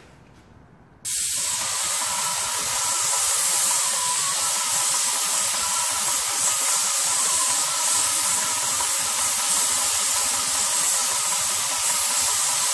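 Airless paint spray gun with a Wagner/Titan 517 HEA tip spraying paint at about 1000 PSI: a loud, steady hiss that starts suddenly about a second in.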